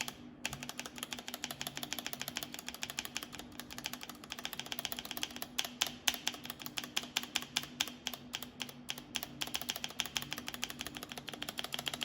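Typing on a mechanical keyboard fitted with lubed Feker Holy Panda tactile switches: a fast, continuous run of keystrokes starting about half a second in.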